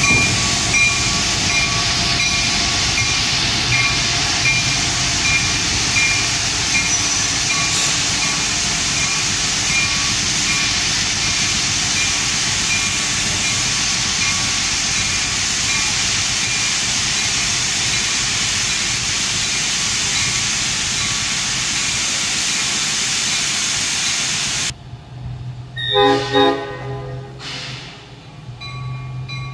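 Diesel switcher locomotive running as it pulls away, its bell ringing about twice a second and fading out. After a sudden cut, two short horn blasts come from the locomotive further off.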